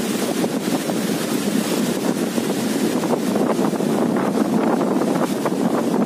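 Strong wind gusting through a large leafy tree, the leaves rustling, with wind buffeting the microphone in a steady, unbroken rush.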